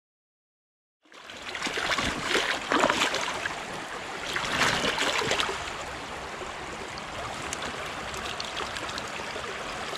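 A shallow, stony stream running, starting about a second in, with wading boots splashing and stepping through the water in two louder spells in the first half.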